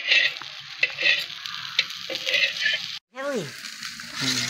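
Fish frying in hot oil in a pan: a steady sizzle that surges louder four times in the first three seconds. About three seconds in, the sound cuts out for a moment and a short call falling in pitch follows.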